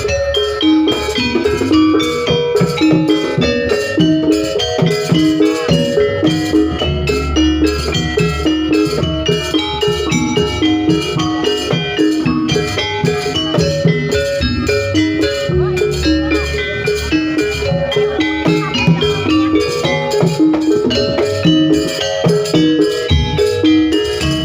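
Jaranan pegon music: gamelan-style metallophone and gong strokes in a steady repeating pattern over drums, with a heavily boosted bass.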